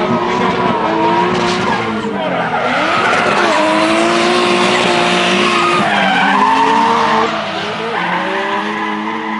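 Drift car sliding through the course: its engine revs hard, the pitch swinging up and down with throttle and gear changes, over the steady hiss of tyres squealing and skidding. The revs drop briefly about three seconds in and again about six seconds in.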